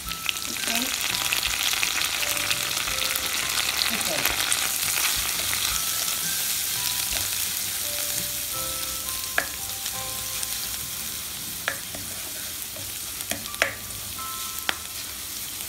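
Crushed ginger, garlic and curry leaves sizzling in hot coconut oil in a non-stick pan while being stirred with a spatula. The sizzle flares up just after the curry leaves go in and eases off later, with a few sharp taps of the spatula on the pan in the second half.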